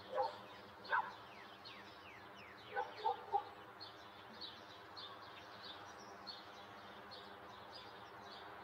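Faint outdoor birdsong ambience: small birds chirping steadily with quick falling notes, with a few short, louder calls from a larger bird, three of them in quick succession about three seconds in.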